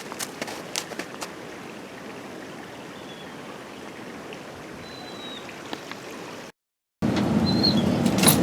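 Steady rushing noise with a few sharp clicks in the first second and two faint high chirps midway. The sound drops out completely for half a second near the end, then comes back louder.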